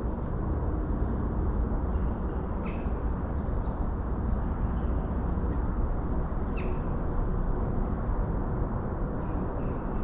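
Outdoor ambience: a steady low rumble with a few bird calls over it, a quick run of high chirps about three to four seconds in and another short call near six and a half seconds.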